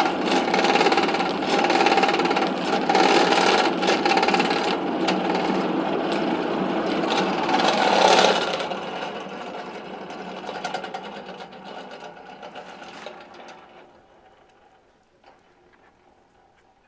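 Forge blower whirring steadily as it forces air into a burning coal forge fire, with fine crackling, dying away over the second half.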